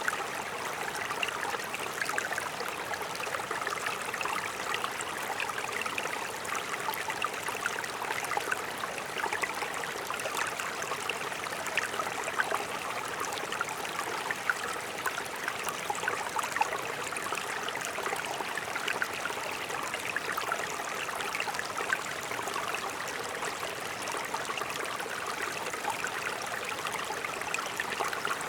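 A mountain stream running steadily over rocks: a continuous rushing babble dotted with small splashes and drips.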